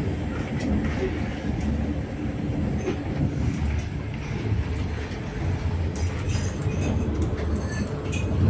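Moving double-decker passenger train heard from inside a compartment: a steady low rolling rumble of the carriage on the rails, with light rattles and ticks in the last couple of seconds.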